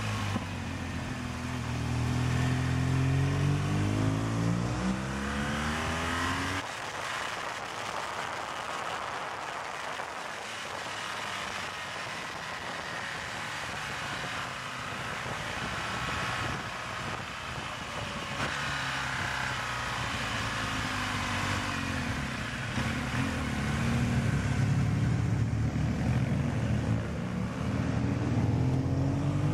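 Motorcycle engine heard from the bike itself while riding, its pitch rising and falling with the throttle through the bends, with wind rushing over the microphone. About six or seven seconds in the sound cuts to a steadier stretch where wind noise is louder than the engine. The engine note comes back strongly in the last third.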